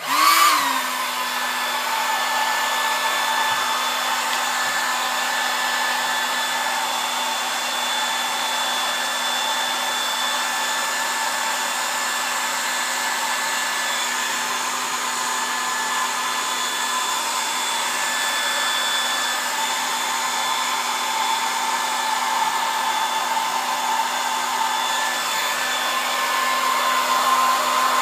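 Handheld hair dryer switched on and spinning up in a moment, then running steadily: a rush of air with a steady motor hum and a higher whine.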